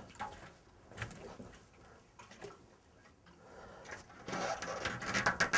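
A few faint light clicks, then, in the second half, a scratchy rubbing that grows louder: a hand smoothing and pressing a one-piece adhesive tank pad down onto a Kawasaki Ninja 250R's painted fuel tank, working the air out from underneath.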